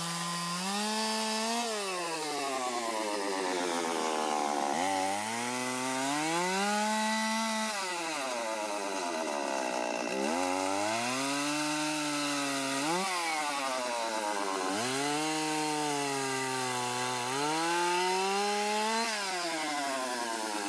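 Chainsaw running through cuts in tree branches, its engine note climbing and then dropping sharply every few seconds as the chain bites into the wood.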